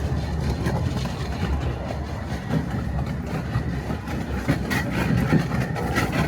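Miniature railway train running, a steady low rumble.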